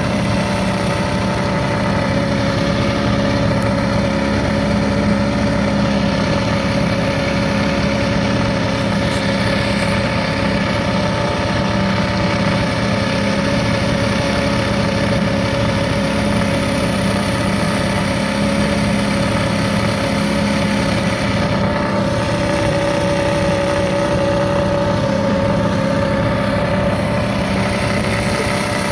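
A small boat's engine running at a steady speed, a constant drone that holds one pitch throughout.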